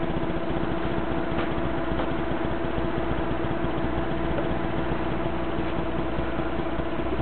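Steady mechanical hum with a constant mid-pitched tone, unchanging throughout.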